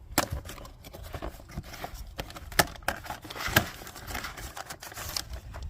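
Packaging crinkling and rustling as it is opened by hand, with three sharp knocks among it.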